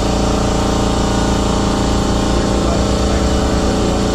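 A motor running with a steady, even hum that does not change.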